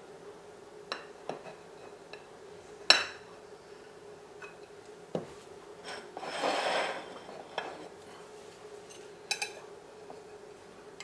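A chef's knife cutting through a ganache-covered chocolate cake, its metal blade knocking and clinking against the ceramic plate a handful of times, the loudest clink about three seconds in, with a soft scrape lasting about a second past the middle. Near the end a metal offset spatula clicks against the plate as it slides under the slice.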